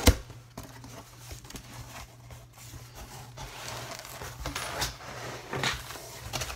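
A sharp thump as something is set down on a cardboard shipping box, then rustling and crinkling of brown packing paper being handled inside the box, with a few small knocks.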